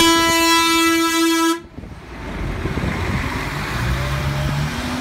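Mercedes-Benz Citaro city bus sounding one long horn blast of about a second and a half, which cuts off suddenly. Then its engine runs as the bus pulls away from the stop.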